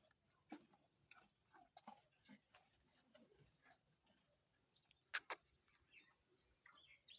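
Cattle chewing raw white potatoes: faint, irregular crunching and clicking, with two sharper crunches a little past five seconds in.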